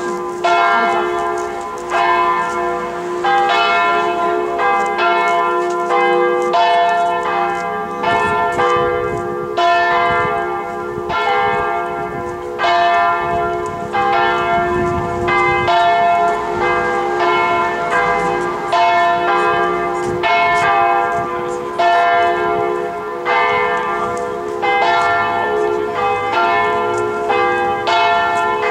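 Several church bells of the Marble Church (Marmorkirken) swinging and ringing together in a peal. Strokes come about once a second and overlap, so the tones keep sounding between strikes.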